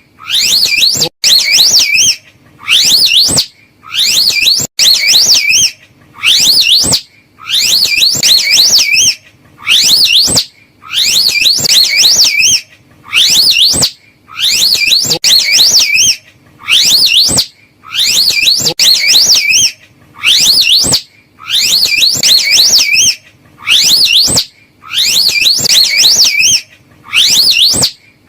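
Slow loris call: a loud, high warbling whistle with a fast wavering pitch, repeated over and over about every second and a half with short gaps between.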